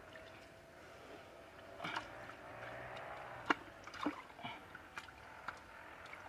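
Muddy water squelching and sloshing at the bottom of a dug fish hole as a hand gropes about in it, with a few sharp clicks, the loudest about three and a half seconds in.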